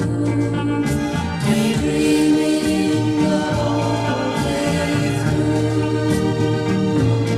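1960s pop record: a vocal group singing over instrumental backing, with a bass line moving under sustained notes.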